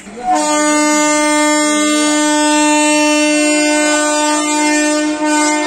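Railway locomotive air horn sounding one long, steady blast that starts about a quarter-second in.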